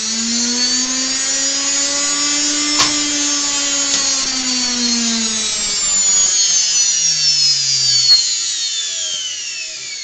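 Washing machine universal motor (armature and field windings) running at full power with a high whine, then winding down from about six seconds in, its whine falling steadily in pitch. A sharp click about three seconds in and another about eight seconds in.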